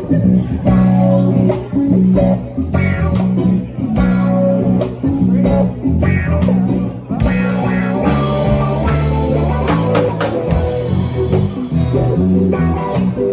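A band jamming a bluesy groove, with guitar over a bass guitar line.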